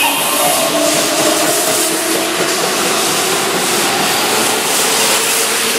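Seven-car Keihan Electric Railway train moving past a station platform at speed: a loud, steady rush of wheels on rails and running gear.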